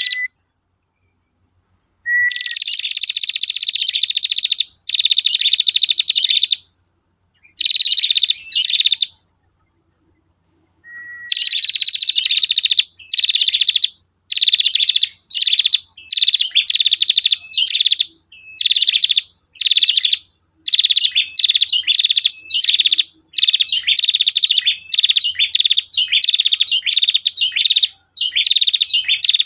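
Female prenjak (prinia) giving its long 'tir' trill, a rapid dry rattle high in pitch. It comes in bursts: a few long ones of two to three seconds, then shorter bursts at about one a second, some led by a short rising note.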